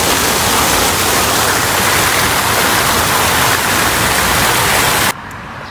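Fountain water: dozens of jets spouting from dog statues and splashing into the basin, a steady dense rush that cuts off suddenly near the end.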